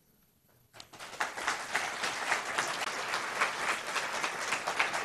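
Audience applauding, starting about a second in with a brief hush before it.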